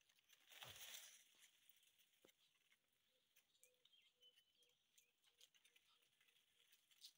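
Near silence: faint outdoor ambience with scattered soft clicks and a brief swell of noise about a second in.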